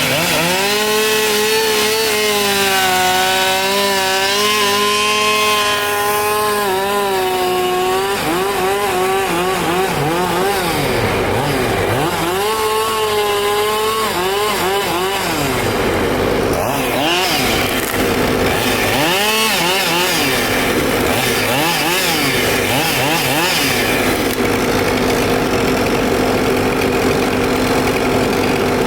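Chainsaw cutting through a tree, held at high revs through the cut for the first several seconds, then revving up and down repeatedly.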